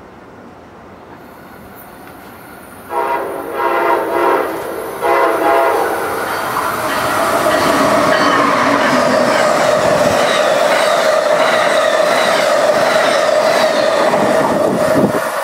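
Amtrak passenger train led by a Siemens ACS-64 electric locomotive sounding its horn in several blasts about three seconds in, then passing at speed: loud rail noise and clatter of the cars with a steady whine running through it.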